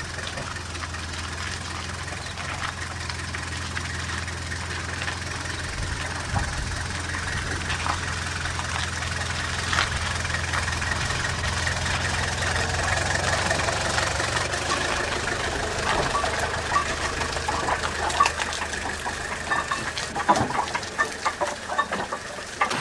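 An engine running with a steady low hum that fades out about fifteen seconds in, followed by irregular sharp metallic knocks and clanks over a faint hiss.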